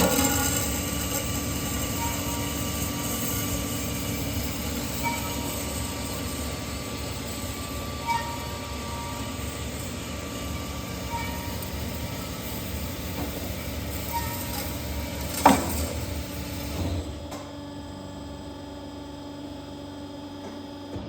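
Berg & Schmid GBS305 VA-I CNC miter band saw running with a steady machine hum and a short faint chirp about every three seconds. About two-thirds in there is one sharp clack, and soon after the sound drops as part of the machine stops.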